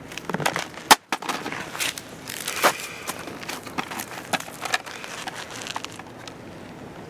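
Irregular rustling and crackling with many scattered sharp clicks, with a short gap about a second in.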